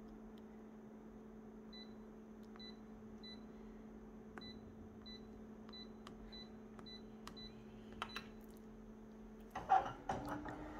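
Office copier's touchscreen giving a short high beep at each key tap, a string of about a dozen beeps a fraction of a second apart, over the machine's steady hum. Near the end, a louder clatter as the copier's lid is handled.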